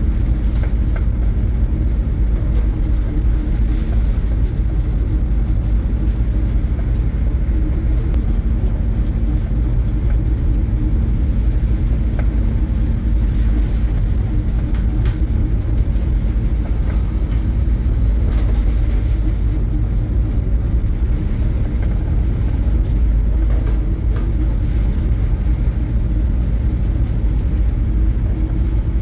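Steady low drone and hum of a coastal cargo ship's engine, heard from inside the wheelhouse.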